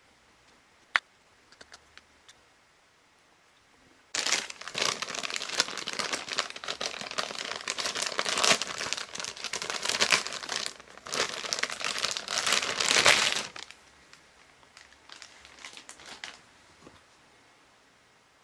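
Crinkling, crumpling handling noise in several runs lasting about nine seconds, after a single sharp click about a second in, with a fainter patch of the same near the end.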